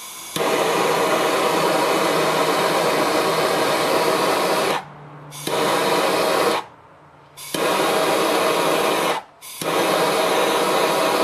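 Small gas torch burning with a steady loud hiss while it heats shrink tubing on a wire. The hiss breaks off briefly three times, about five, seven and nine and a half seconds in, as the flame is shut off and relit.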